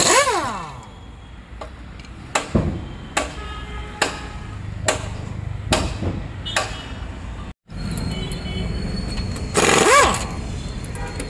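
Pneumatic impact wrench loosening wheel nuts: a loud burst at the start and another about ten seconds in, each whining down in pitch as the trigger is let go. Between the two, background music with a slow, regular beat.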